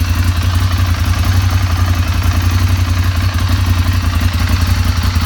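Ducati Monster 796's air-cooled L-twin engine idling steadily with an even, fast pulse.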